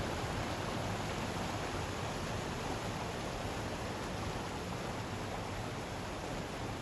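Steady rushing noise, even and unbroken, with no distinct sounds standing out.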